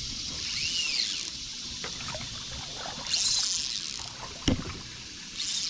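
Short bursts of splashing and trickling water as a hooked longnose gar thrashes at the surface beside a kayak, with a single sharp knock about four and a half seconds in.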